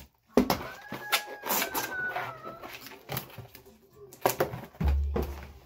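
Inflated latex balloon squeaking and rubbing against fingers as its neck is stretched and knotted, with a short squeal lasting about two seconds and a dull thump near the end.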